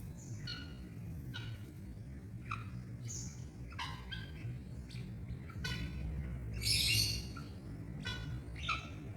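Guinea fowl calling: a run of short, harsh, repeated calls, with a louder, longer raspy call about seven seconds in.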